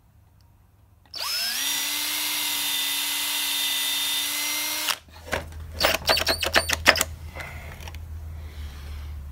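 Cordless DeWalt drill spinning up about a second in and running at a steady high speed for about four seconds while drilling a pilot hole through stainless-steel sheet into wood, then stopping abruptly. A quick run of sharp clicks and knocks follows.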